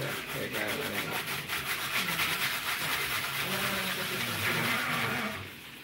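Saladmaster hand-cranked food processor shredding cabbage through its cutting cone, a steady rapid grating and rasping that stops shortly before the end.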